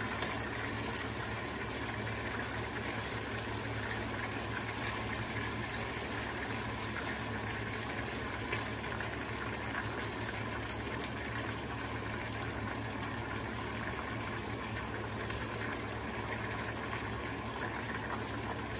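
Chicken pieces frying in hot oil in a skillet, a steady sizzle, with a few light clicks as a fork turns the pieces in the pan.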